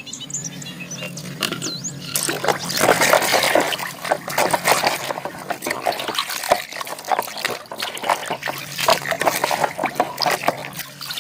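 Water splashing and sloshing as a small plastic toy animal is washed by hand in water, with small knocks of plastic; the splashing picks up about two seconds in.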